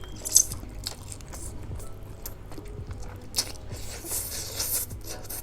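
Close-miked chewing of spicy Korean instant noodles, with a few sharp clicks and a short slurp about four seconds in.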